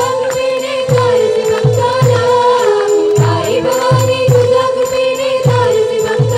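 Gondhal, a Marathi folk devotional song, performed by a group: a chorus of voices singing over a regular low drum beat and a steady held note.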